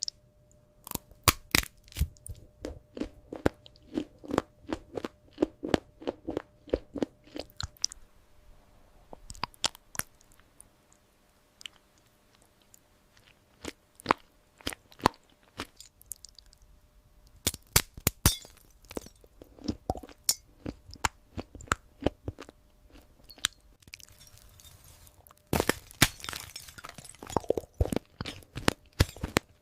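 Close-up crunching and chewing of hard, brittle red desserts. Sharp crunches come in runs of several a second, with short pauses between runs, and turn into a denser burst of crackling crunches near the end.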